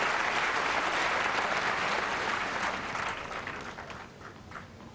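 Tennis spectators applauding after a point, the clapping steady for about three seconds and then dying away to a few scattered claps.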